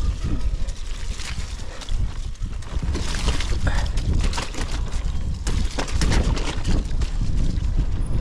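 Wind buffeting the microphone over a mountain bike rolling down a wet, muddy moorland trail: its tyres run through mud and grass, and the bike rattles with scattered knocks over bumps.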